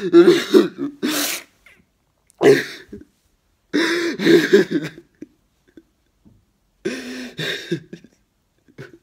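A man sobbing hard: four bouts of crying wails broken by gasping breaths, with short pauses between them.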